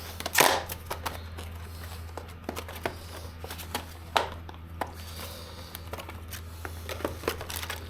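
Small parts and the plastic packaging of a slave-cylinder rebuild kit being handled: scattered light clicks and rustles, the strongest about half a second in, over a steady low hum.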